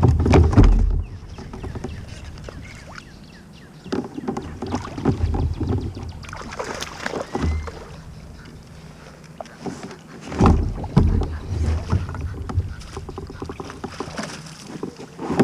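Wind buffeting the microphone in gusts, heaviest at the start and again about ten seconds in, with water lapping and scattered small knocks on a Hobie fishing kayak.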